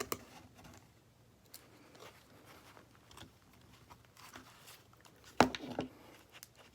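Faint, scattered clicks and taps of the small parts of a torn-down smartphone being handled and moved aside on a table, with a sharper pair of clicks about five and a half seconds in.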